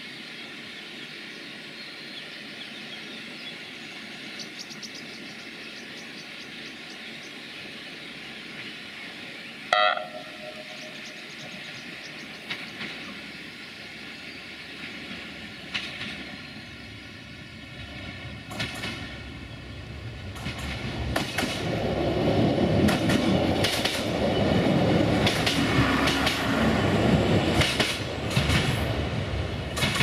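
Class 628 diesel multiple unit approaching along the line, giving one short horn blast about ten seconds in. It then passes close by, its diesel engine and running noise building up over the last third with the wheels clicking over the rail joints.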